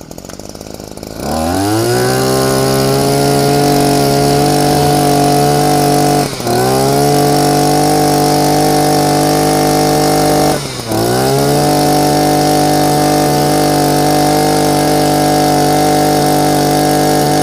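Two-stroke brush cutter engine running low, then revved to high speed and held there. Twice the throttle drops back for a moment and the engine revs straight up again.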